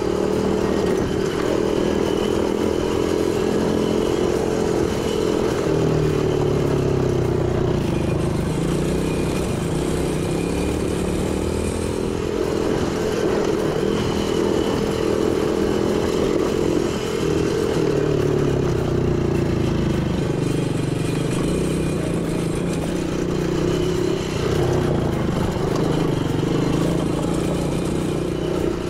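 Quad bike (ATV) engine running while it is ridden along a dirt trail, the engine note dipping and rising several times with the throttle.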